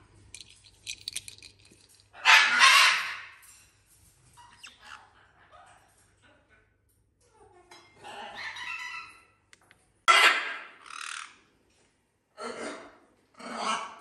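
Black-headed caique giving a string of harsh, screechy calls in short bursts with pauses between, the loudest about two seconds in.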